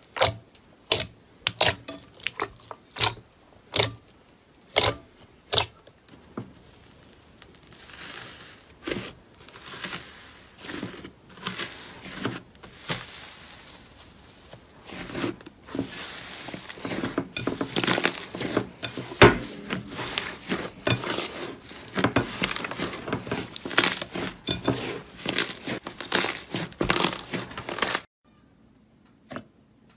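Slime being squeezed and pressed, making sharp pops about once a second at first, then dense crackling and popping that stops suddenly near the end.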